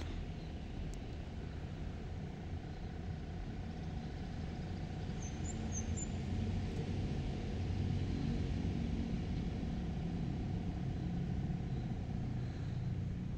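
Low rumble of a vehicle engine, growing louder midway and easing off near the end.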